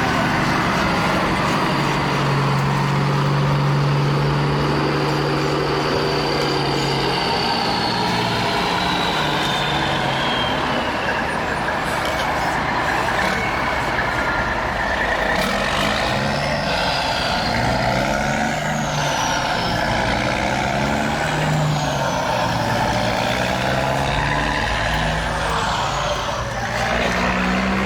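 Radio-controlled model construction trucks and an excavator working, with a steady truck-engine sound whose pitch holds and then shifts in steps. Over it comes the whine of small electric motors and gears, falling once and then rising and falling several times.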